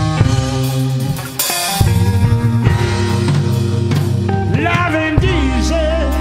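Blues-rock band music: drum kit, bass and electric guitar playing, with a cymbal crash about a second and a half in and a wavering lead line over the last second and a half.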